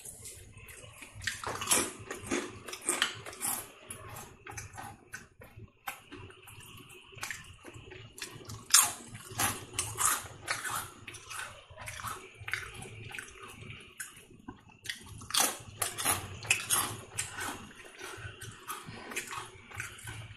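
Close-miked crunching of ridged tomato-flavoured Bingo potato chips being bitten and chewed: sharp crackles in three louder bouts, about two, eight and fifteen seconds in, with quieter chewing crackle between.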